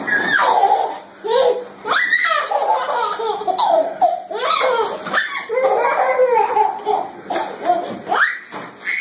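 A baby laughing repeatedly, in a string of laughs with brief pauses between them.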